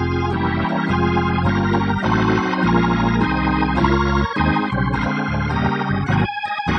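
Church organ, Hammond-style, playing held chords over a moving bass line. About six seconds in it thins out to short, separated bass notes.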